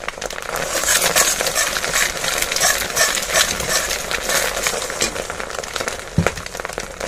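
Egg frying in hot ghee and oil in a metal kadai, sizzling steadily while a metal spatula stirs and scrapes it, with many small clinks of the spatula on the pan. There is a sharper knock of the spatula against the pan about six seconds in.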